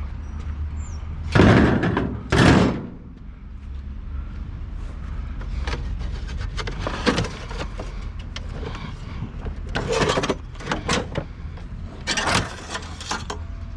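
Scrap metal being handled and loaded at a vehicle: two loud bangs about a second apart, then scattered knocks and clatter, over a steady low hum.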